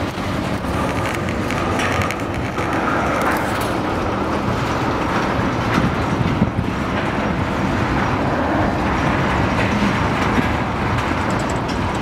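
Freight train cars (tank cars, a boxcar and flatcars) rolling past on the near track, with a steady noise of steel wheels on the rails.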